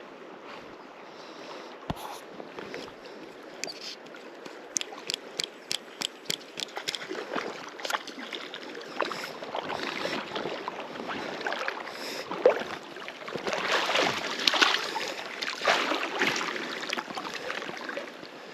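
River water flowing, with splashing as a hooked brown trout is played and brought to hand. About five seconds in comes a run of evenly spaced clicks, about three a second, and the splashing grows louder later on.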